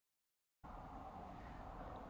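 Dead silence, then from about half a second in, a faint, steady room-tone hiss with no distinct sound in it.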